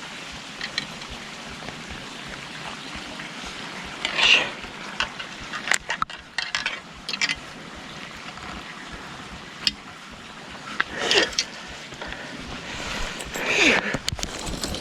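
Water splashing in a few short bursts over a steady background hiss: a hooked largemouth bass thrashing at the surface as it is landed.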